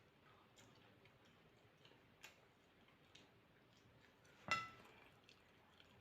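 Mostly near silence with scattered faint small clicks of eating at a table. About four and a half seconds in comes one clear ringing clink of tableware, a dish or utensil being struck.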